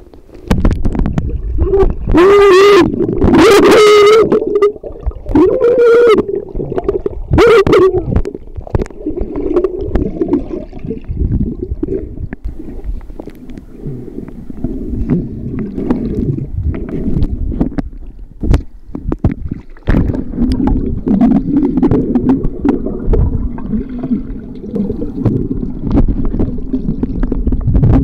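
Underwater sound around a submerged camera: a woman's voice, muffled and warped by the water, calls out hello several times in the first eight seconds. After that comes a steady wash of bubbling, gurgling water with scattered clicks and knocks as she swims.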